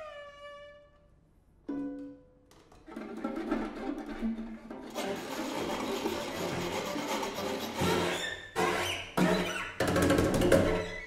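A string quartet of two violins, viola and cello playing contemporary music. A single violin note with wide vibrato fades out, a sudden accented note sounds about two seconds in, and then the full quartet comes in with dense, harsh, noisy bowing. Near the end the ensemble breaks off abruptly and re-enters several times.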